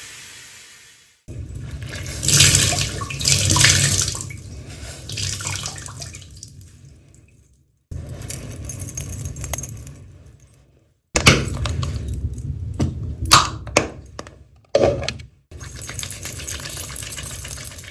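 Separate short foley recordings spliced one after another, each starting abruptly after a brief gap. The first half is a noisy rush like running or splashing water, and the second half is a run of sharp clicks and knocks.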